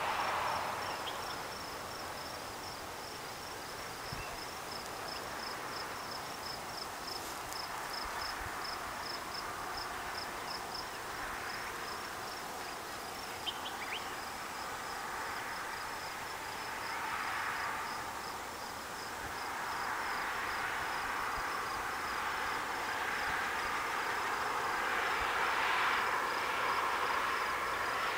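An insect chirping in a steady high-pitched pulse, several chirps a second, over a background hiss that swells and fades.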